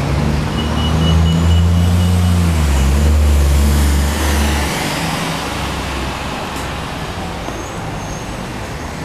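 Street traffic: a motor vehicle passes close by, its engine hum loudest in the first few seconds and dying away about halfway through, leaving steady traffic noise.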